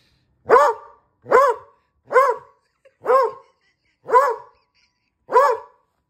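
A medium-sized tan dog barking six times, about one bark a second, each bark rising then falling in pitch. These are demand barks for a ball the owner is withholding.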